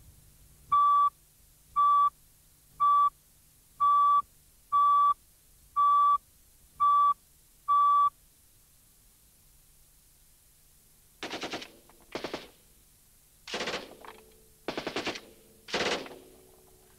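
Broadcast countdown leader: eight short beeps of one steady tone, one a second, then a few seconds of quiet. About eleven seconds in, machine-gun fire starts in several short bursts.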